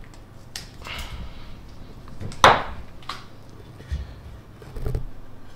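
Handling noises of small hardware parts on a desk: light clicks and rustles of plastic packaging, with one sharp knock about two and a half seconds in and a couple of softer taps near the end.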